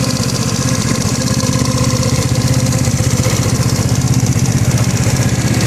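Big-bore GY6 180cc single-cylinder four-stroke scooter engine running steadily with a rapid, even knocking. The owner says the knock has been getting louder and seems to come from the cylinder head, though he is not sure.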